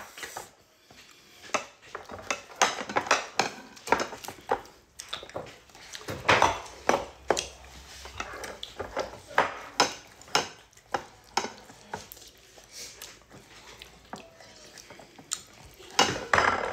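Eating at a table by hand: irregular light clicks, taps and knocks of fingers and food against ceramic plates, with mouth sounds of chewing.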